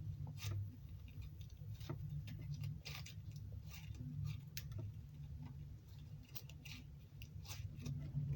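Butter slime with sprinkles mixed in, squished and poked by hand, giving soft irregular clicks and small pops over a steady low hum.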